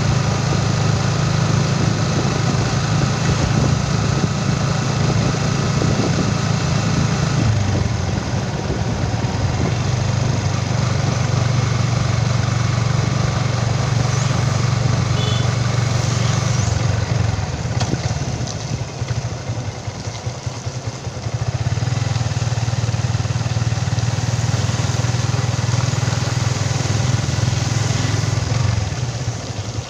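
Motorcycle engine running steadily as it is ridden along a road, over a constant rushing noise. The engine note eases off briefly a few times, longest about two thirds of the way through.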